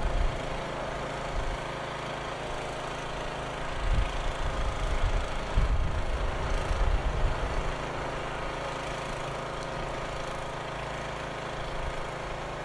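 An engine running steadily at idle, one unchanging hum. A few low rumbling bursts on the microphone come about four to seven seconds in.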